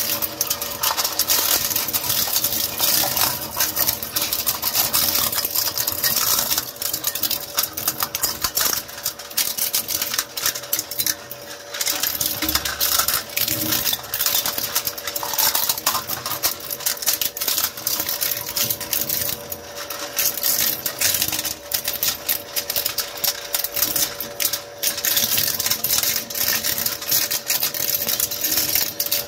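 Twin-shaft shredder crushing and cutting clear disposable plastic stemmed glasses: dense, continuous cracking and snapping of hard plastic breaking between the rotating blades. A steady motor hum sits underneath, and the crackling thins briefly a little before halfway.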